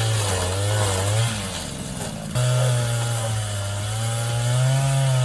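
Two-stroke chainsaw engine running hard, its pitch wavering as it cuts. It sags and quietens about a second and a half in, then comes back abruptly and runs steadily.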